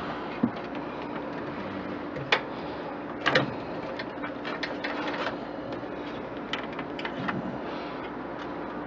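Light clicks and knocks of computer parts being handled and pulled apart inside a desktop case, with three sharper knocks in the first few seconds and a run of lighter ticks after. A steady low hum runs underneath.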